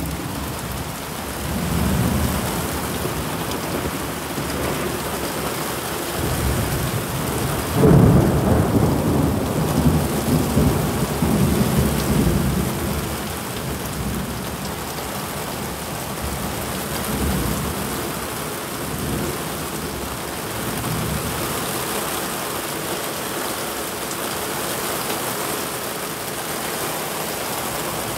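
Heavy rain pouring steadily, with thunder rumbling under it: a low rumble about two seconds in, then a sudden loud peal about eight seconds in that rolls on for several seconds and fades back into the rain.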